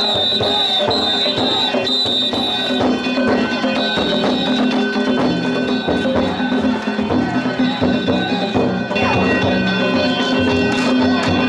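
Danjiri festival music: drums beaten in a quick, steady rhythm with metal gongs ringing over them.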